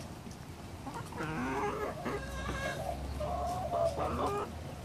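Domestic hens clucking and calling, a string of pitched calls starting about a second in and running until near the end.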